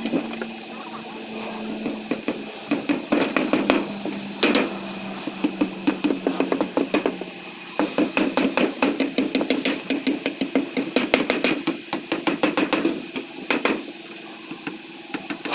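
Hammering on a construction site: runs of quick, sharp knocks, several a second, over a faint steady hum.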